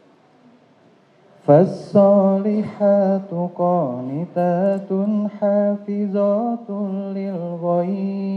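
A man reciting the Quran in Arabic into a microphone, chanted in a melodic style. The recitation starts about a second and a half in, with wavering, drawn-out notes and a long held note near the end.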